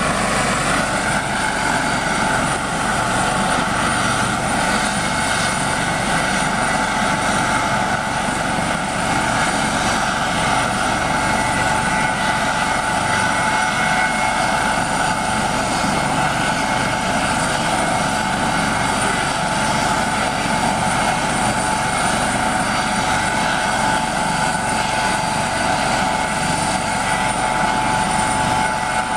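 Eurocopter MH-65 Dolphin helicopter hovering low, its twin Turbomeca Arriel turboshaft engines and rotors running in a steady whine and rotor noise. The whine rises slightly in pitch about half a second in, then holds.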